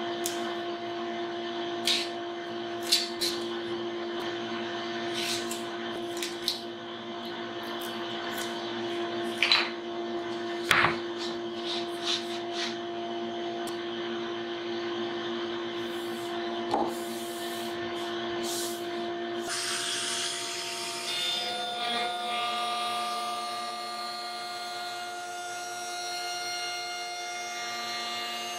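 Steady hum of a workshop dust extractor running, with short sharp rips and taps in the first half as double-sided tape is torn off the roll and the template pressed down. The hum changes tone about two-thirds of the way through.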